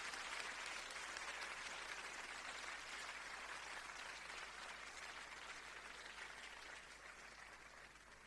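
Audience applauding, a steady patter of many hands clapping that gradually dies down toward the end.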